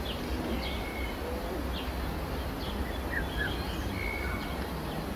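Wild birds calling in the background: scattered short chirps and a few brief whistles over a steady low rumble of outdoor ambience.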